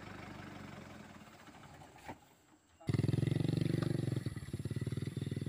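A diesel truck engine idling and fading out, then, after a brief gap, a small motorcycle engine running loud at high revs with a rapid, even beat, labouring as it is forced through deep mud.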